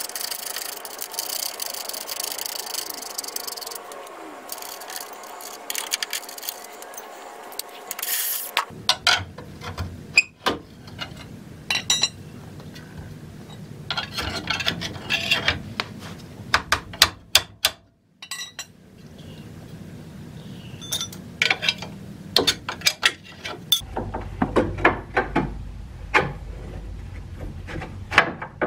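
A 1/2-inch impact wrench runs steadily for about eight seconds, backing out the 21 mm lower control arm bolts, then stops abruptly. After that come scattered metal clinks and knocks as sockets, bolts and a pry bar work against the steel control arm.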